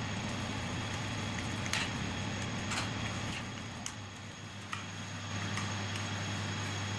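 Steady electric motor hum from neighbouring water pumps running, with a few light clicks from handling the plastic terminal box of the idle pump early on. The hum firms up and grows slightly stronger about five seconds in.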